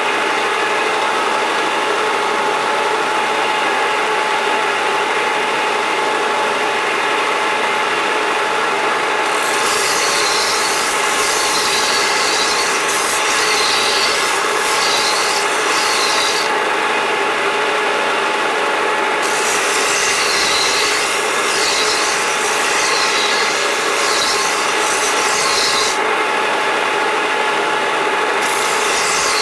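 Edges of a steel chainsaw bar being dressed smooth with rhythmic rasping strokes, about one and a half a second, starting about ten seconds in and pausing twice, over a steady running motor drone. The strokes take off the burred edges on the side of the bar that cause splinters.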